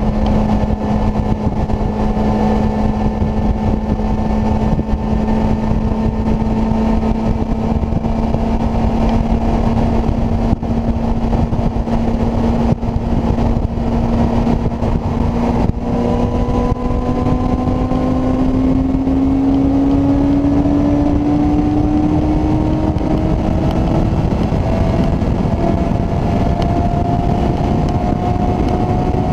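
Kawasaki ZZR600's inline-four engine pulling hard at high revs at full throttle, under heavy wind rush. Its pitch holds steady, then climbs slowly through the second half as the bike gains speed.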